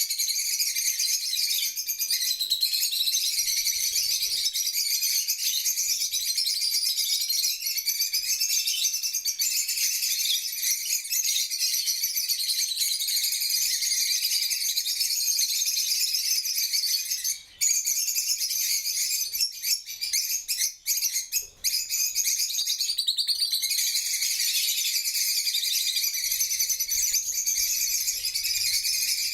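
A flock of African lovebirds chattering, many high-pitched chirps overlapping without letup, with a few brief pauses a little past halfway.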